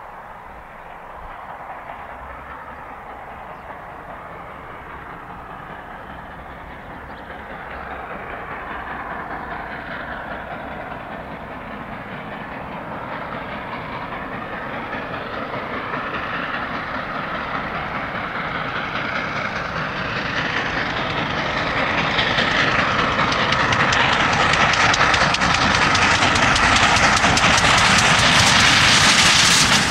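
LNER A4 Pacific steam locomotive 60009 working hard as it hauls a train of coaches toward the listener, its sound growing steadily louder and loudest near the end.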